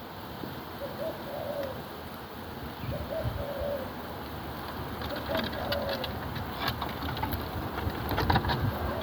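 A bird giving soft, low, coo-like calls, one short note every second or so, with a few sharp clicks in the second half.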